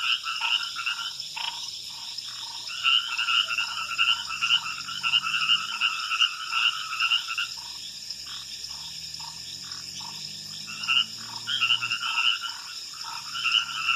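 Night chorus of frogs calling: bouts of rapid short repeated notes that start and stop every few seconds, over a steady high drone.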